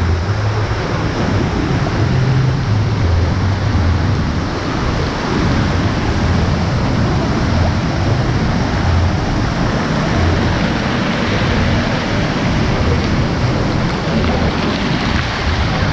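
Steady rush of moving water in a lazy river, with an uneven low rumble underneath.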